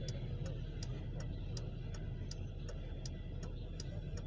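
Steady, even ticking about two and a half times a second over the low rumble of a Norfolk Southern freight train passing a road crossing, heard from inside a waiting car.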